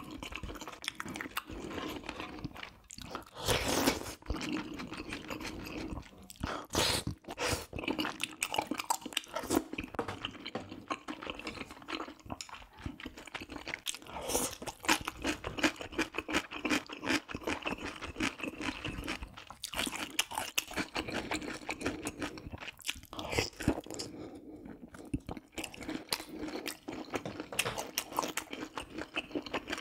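Close-miked chewing and biting of spicy braised pork ribs with rice cakes and mushrooms: a steady run of small crunches and mouth clicks, with a few louder bites along the way.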